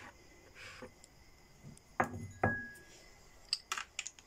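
Kitchen glassware or crockery being handled: two light clinks about two seconds in, the second ringing briefly, then a few small clicks near the end.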